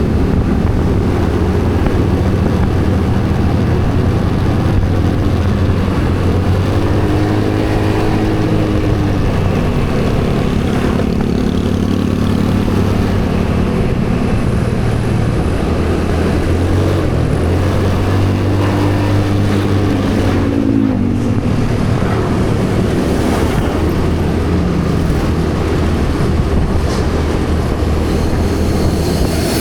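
Motorcycle under way, its engine making a steady low rumble over a constant haze of road noise; the engine note rises and falls a couple of times.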